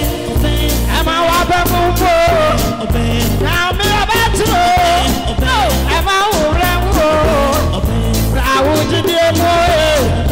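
Live gospel music: a man singing into a microphone, with wavering, sustained sung notes over backing music with a heavy pulsing bass.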